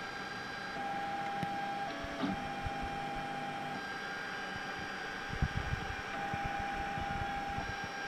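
Da Vinci 3D printer printing: its stepper motors whine in steady tones that switch pitch every second or two as the print head moves, over the whir of a small cooling fan. A few soft low knocks come about two-thirds of the way through.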